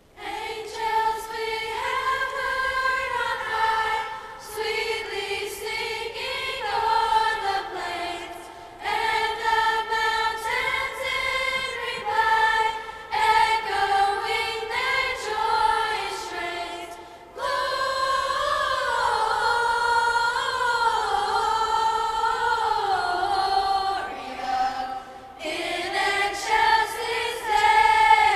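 A school choir singing a cappella, in phrases separated by short breaks.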